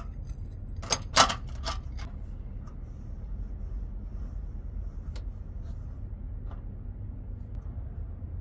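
Sharp metallic knocks and clinks of a small stainless-steel cup and metal coffee-dripper parts being handled and set down on a slatted camp table. A quick cluster of knocks comes about a second in and is the loudest, followed by a few single clicks, over a steady low rumble.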